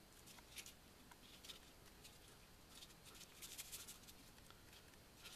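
Faint rustling and light scraping of gloved hands handling and turning a metal camera lens. A few soft scratchy sounds, with the busiest cluster about three to four seconds in.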